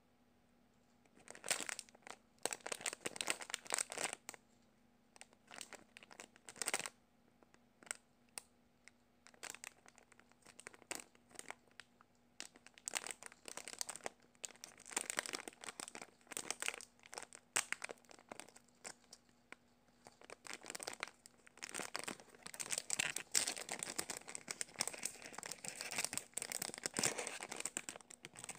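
Clear plastic bags around squishy foam toys crinkling in irregular bursts as hands pick up and handle the packaged toys, the crinkling thickest near the end. A faint steady hum runs underneath.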